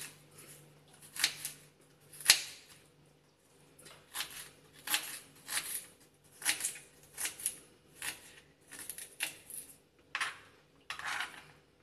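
Kitchen knife chopping fresh ginger into small pieces on a wooden cutting board: a run of sharp chops, irregular and roughly two a second, with two louder knocks in the first few seconds.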